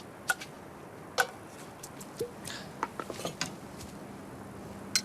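Several sharp clicks and light clinks, the loudest about a quarter second in, just past a second, and right at the end, with a quick flurry of small ticks in the middle, over a faint steady hum.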